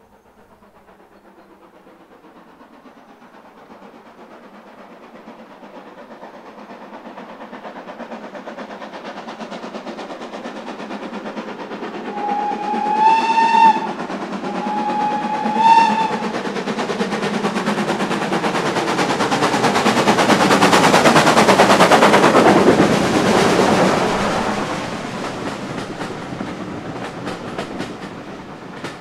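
Steam train approaching and passing close by, growing steadily louder to a peak past the middle and then easing as the carriages run past. About halfway through, the locomotive's whistle sounds two short blasts, the second a couple of seconds after the first.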